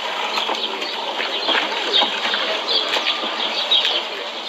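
Many small birds chirping, a dense run of short, falling chirps.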